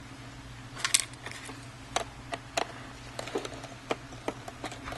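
Small irregular clicks and taps of a screwdriver working the screws out of a MacBook Pro's bottom case, about a dozen in all, over a steady low hum.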